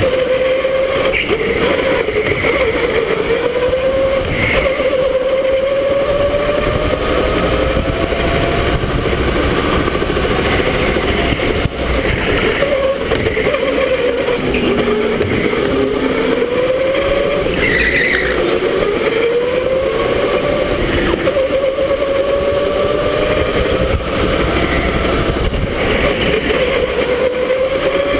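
Electric go-kart motor whining, its pitch rising and falling over and over as the kart speeds up and slows through the corners, over steady wind and tyre noise.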